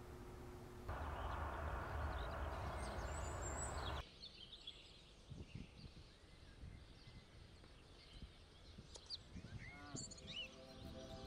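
Outdoor ambience with small birds chirping now and then. A steady rushing noise for the first few seconds cuts off suddenly about four seconds in.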